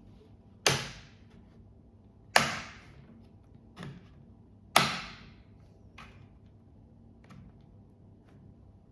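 Plastic snap-fit clips of a Lenovo T14 laptop's bottom cover popping free as a plastic pick pries along the edge: three sharp snaps in the first five seconds, followed by a few fainter clicks.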